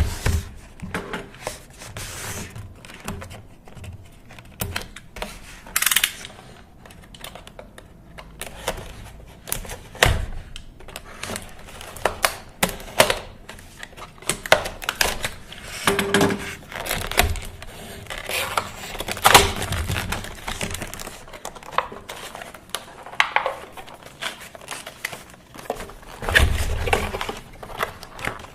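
Product packaging being handled and opened by hand: irregular clicks, crinkling and short tearing sounds.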